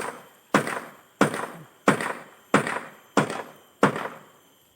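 A run of sharp, evenly spaced knocks, about one and a half a second, each with a short ringing tail. They stop about four seconds in.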